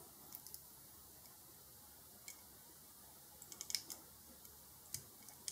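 Faint, light clicks and ticks of fingers handling a small diecast toy car: a few near the start, a quick cluster a little over halfway through, and another near the end.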